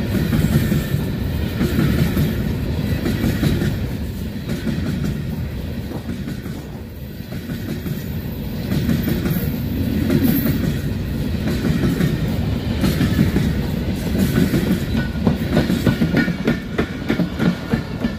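Empty freight hopper wagons rolling past close by: a steady rumble with wheels clacking over the rail joints. In the last few seconds the clacks come sharper and more regular as the end of the train passes.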